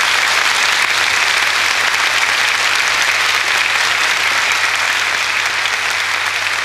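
Studio audience applauding steadily and warmly.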